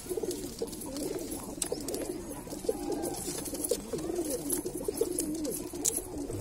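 Domestic pigeons cooing continuously, several calls overlapping, with a few short clicks.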